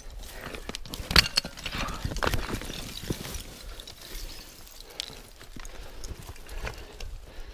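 Boots and hands scrambling up a steep rocky slope: irregular scuffs, knocks and crunches on rock and dry forest litter, with a sharper knock about a second in.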